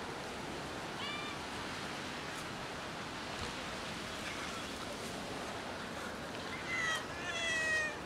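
Cats meowing: one short meow about a second in, then two longer, slightly falling meows near the end, the last the loudest, over a steady background hiss.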